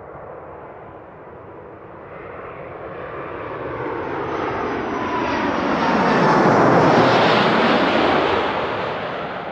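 Airbus A330-243 twin-jet airliner on final approach, flying low overhead. Its engine noise swells to a loud peak about seven seconds in, then fades as it passes, with a faint whine that sinks in pitch.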